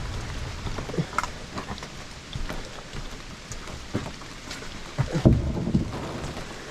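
Rain hissing steadily on open water, with scattered sharp knocks and splashes, the loudest cluster about five seconds in. A low rumble fades out at the start.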